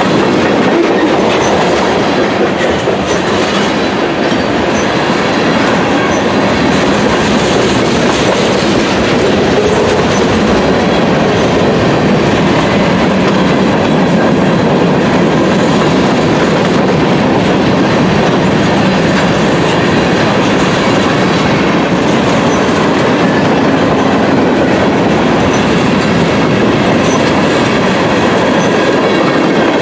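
Freight cars, covered hoppers and tank cars, rolling past close by: a loud, steady noise of steel wheels running on the rails that holds without a break.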